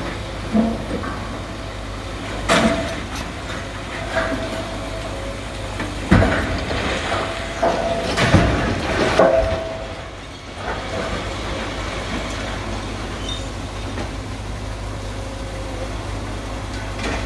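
Long-reach demolition excavator tearing down a brick and concrete building: its engine runs steadily while concrete and masonry crash and clatter down, most heavily from about six to nine seconds in, with brief metallic squeals.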